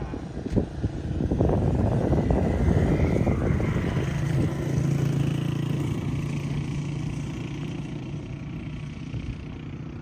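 A motor vehicle passing on the road, its engine and tyre rumble building about a second in, with a steady engine hum, then fading away over the last few seconds.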